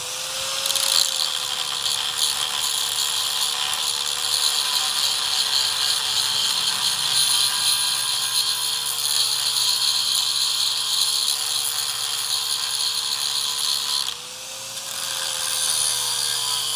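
A power tool running steadily, with a harsh high hiss as it works on metal. About fourteen seconds in, the sound drops briefly as the tool comes off the work, and its motor pitch rises before it settles back.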